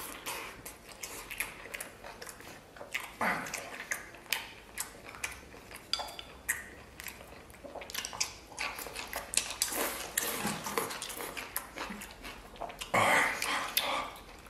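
Close-miked eating sounds: chewing and smacking on tender braised lamb and rice, with the light clicks of wooden chopsticks against a porcelain bowl. The eating gets louder near the end as rice is shovelled from the bowl.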